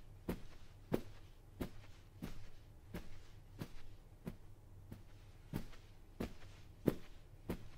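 Footsteps at an even walking pace, about one and a half steps a second, some landing harder than others, over a faint steady low hum.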